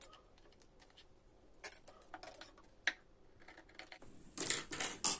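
Stiff white fusible canvas being folded and handled on a table: a few light clicks and taps, then about a second of crisp rustling near the end.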